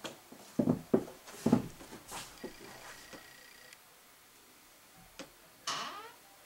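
A few heavy footsteps thudding on a floor in a small room, followed near the end by a short, rough pitched sound.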